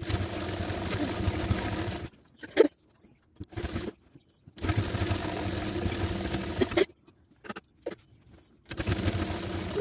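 Sewing machine stitching cloth in three short runs of about two seconds each, with pauses between them while the fabric is repositioned. The first run starts right away, the second is about halfway through, and the third begins near the end.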